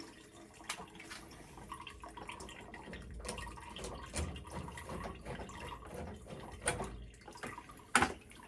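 Flush hoses being unscrewed from a tankless water heater's service valves, with water trickling and dripping and scattered small clicks and knocks. One sharp knock comes near the end.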